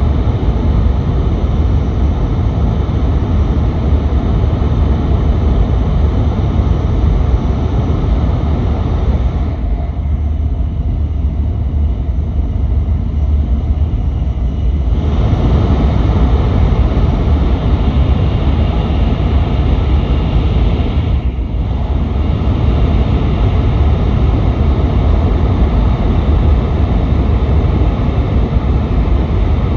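Running noise inside an N700S Shinkansen car at speed, heard at the window: a loud, steady low rumble with a hiss above it. The hiss drops away from about ten seconds in to fifteen, then dips once more, briefly, a little after twenty seconds.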